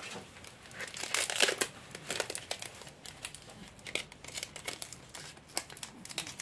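Thin clear plastic film crinkling in irregular crackles as it is pressed and wrapped by hand around a plastic cup, loudest about a second in.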